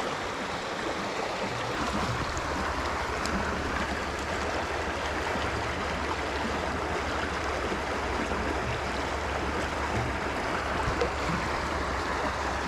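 Trout stream water rushing steadily over rocks, with a low rumble underneath.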